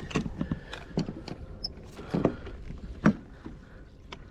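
A few irregular knocks and clicks over a low background rumble, growing quieter near the end.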